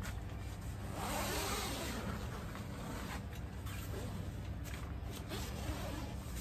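Tent window zipper being pulled open along the fabric panel of an E-Z UP camping cube tent, with the nylon rustling: a long zip about a second in and shorter, fainter zipping later on.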